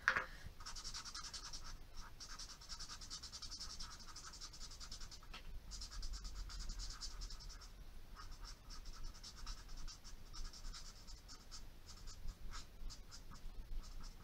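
Felt nib of a Twinmarker alcohol marker rubbed quickly back and forth on bristol card, a fast, even scratching of short strokes, as the ink is worked into a gradient.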